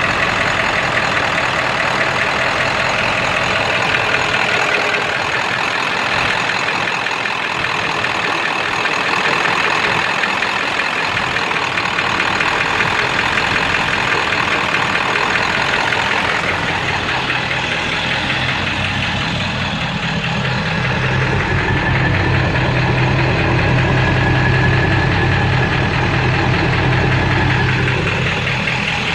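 A 7.3-litre diesel V8 idling roughly with a knock that sounds like a rod knocking. About twenty seconds in, a deeper hum grows stronger in its sound.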